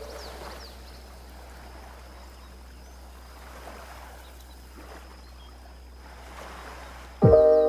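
Soft, steady wash of sea waves on a beach. Chiming music comes back in near the end.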